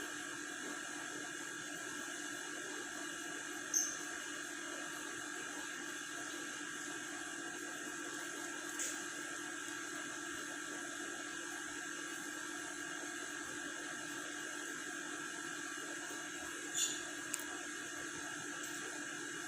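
A few brief high chirps from a lovebird, three in all, spaced several seconds apart over a steady electrical hum; the last chirp is followed by a short click.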